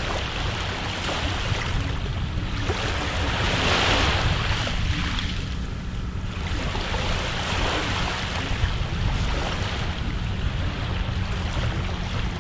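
Wind buffeting the microphone in a steady low rumble, with rushing gusts that swell and fade every few seconds.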